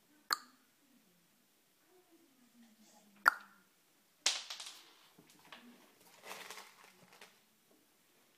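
A wooden kitchen cabinet door pushed shut by a dog's nose. A light sharp knock comes near the start, and the door bangs shut about three seconds in, the loudest sound. A few seconds of scuffling and rustling follow.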